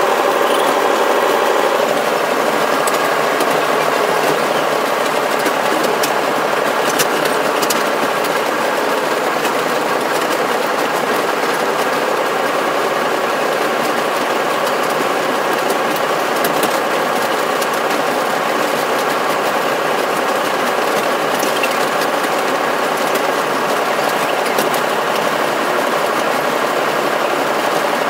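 Diesel locomotive engine running steadily, heard from inside the cab, with occasional light clicks and rattles.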